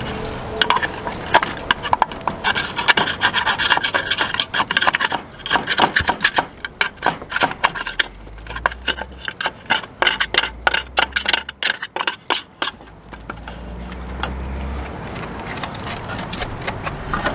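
Hard, dried mud dauber nests being scraped and chipped out of a Suburban RV furnace's outer cover: a quick run of scraping and clicking strokes that comes thickest in the middle and thins out near the end.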